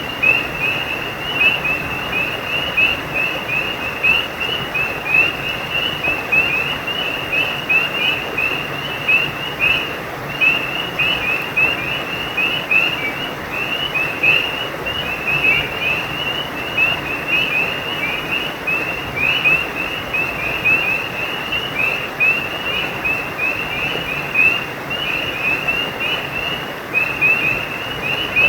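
A chorus of frogs calling in rapid, overlapping high-pitched chirps, over the steady rush of a stream.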